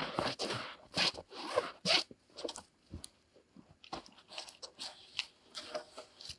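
Footsteps crunching in deep snow, about two steps a second, then fainter scuffs and rustles as the walker stops and handles a snow-covered pole about three seconds in.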